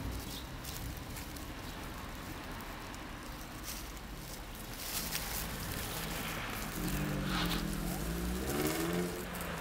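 Steady low rumble of road traffic. A wavering pitched sound rises and falls for about two seconds near the end.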